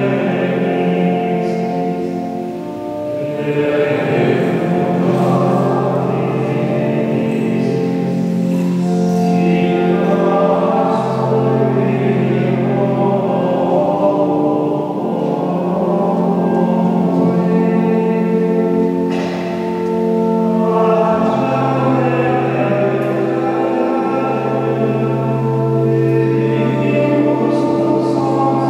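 Choir of Cistercian monks singing vespers chant in long held notes, the melody moving every few seconds over a steady low note.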